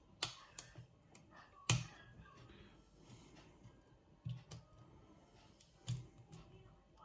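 Lock pick and tension wrench working the pins of a pin-tumbler challenge lock: small, sharp metallic clicks and taps at irregular intervals, the loudest about two seconds in.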